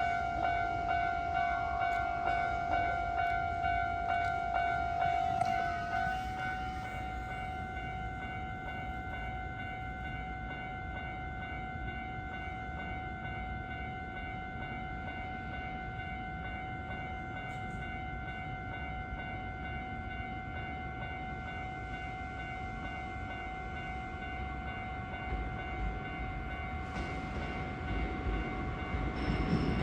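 Japanese railway level crossing warning bells ringing with a steady, rapid repeat; the nearer, louder bell stops about six seconds in while a fainter one keeps sounding. Near the end the low rumble of an approaching Hankyu electric train starts to grow.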